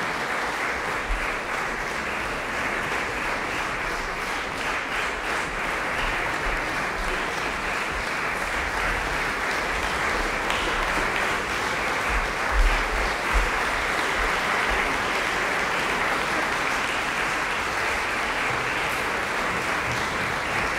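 Concert audience applauding steadily, a long ovation that grows slightly fuller halfway through. Two brief low thumps stand out about twelve and thirteen seconds in.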